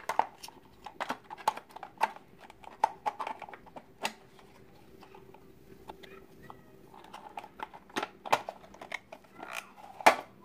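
Hard plastic toy bus parts clicking and knocking as they are handled and fitted together, in irregular taps with a quieter stretch in the middle.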